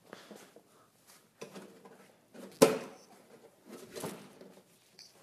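Makeshift slide hammer: a sledgehammer jerked back on a rope tied round a car's CV axle shaft to knock the axle out of the transmission. It gives one sharp knock about two and a half seconds in and a duller one about a second and a half later, with smaller knocks and rustling between.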